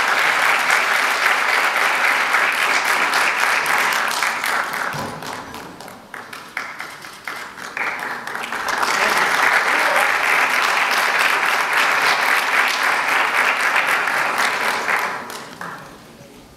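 Audience applauding in two waves: a dense burst of clapping that fades about five seconds in, then swells again a few seconds later and dies away near the end.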